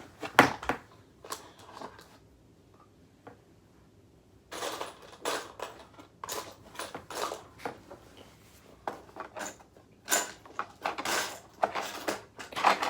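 Small metal butterfly-knife parts and screws being handled and fitted by hand, making irregular clicks and short clattering rattles. A sharp click comes just after the start, then a quiet couple of seconds, then the clicking and rattling pick up again.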